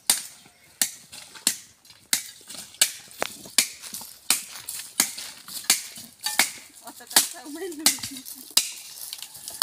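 Hand tools chopping at tree roots and stumps in a steady rhythm of sharp strikes, roughly one every 0.7 seconds, with voices faint in the background.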